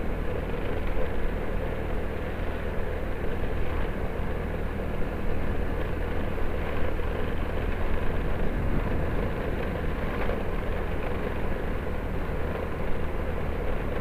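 Motorcycle engine running steadily, with road and traffic noise around it.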